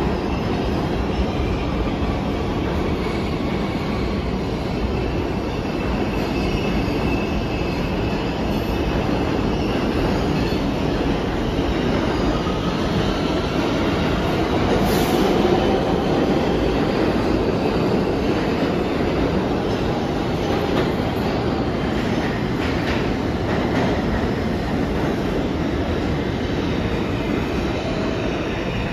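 An R160 subway train pulling out and running along the platform, a steady rumble of wheels on rail with a faint whine and wheel squeal, and one brief sharp click about halfway through.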